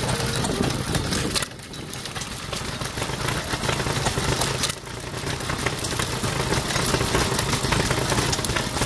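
1919 Aermotor 1 hp hit-and-miss gas engine running, with a regular beat of firing strokes; the sound drops briefly about a second and a half in and again near five seconds.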